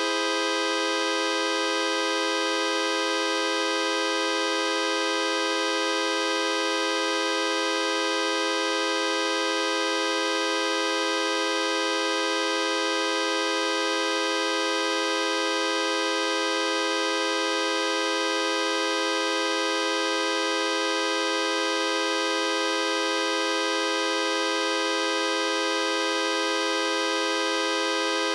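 A steady electronic buzz tone held at one mid pitch with many overtones, unchanging in pitch and loudness throughout.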